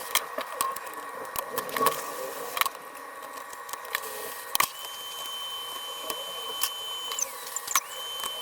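Small, sharp clicks and taps of hand tools working on a tablet's internal parts and flex cables. A high steady tone sounds from about halfway and slides down in pitch near the end, then comes back briefly.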